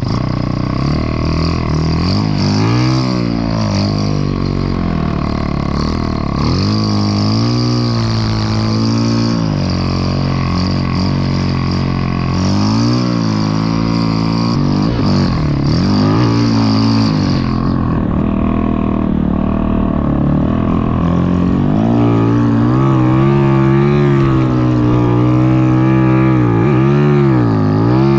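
Snow bike engine revving up and down over and over, its pitch rising and falling every few seconds. A higher hiss behind it fades out about two-thirds of the way through.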